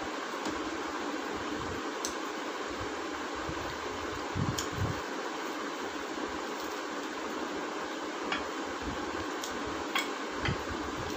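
Steady whooshing noise of a running room fan, with a few soft clicks and smacks of people eating by hand from china plates.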